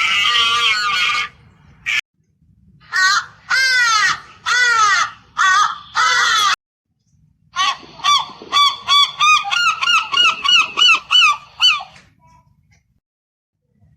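Goose honking: a long call at the start, then several separate honks, then a fast run of about a dozen short honks in the second half.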